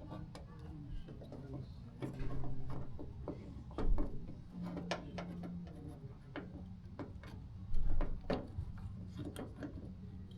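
Irregular clicks and knocks of metal and plastic door-handle and lock parts being worked back into a first-generation Honda CR-V door as the retaining clip is refitted. The loudest knocks come about four seconds in and again near eight seconds.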